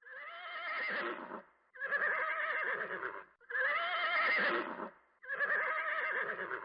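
Horse whinnying: four neighs in a row, each about a second and a half long with a wavering pitch, separated by short pauses.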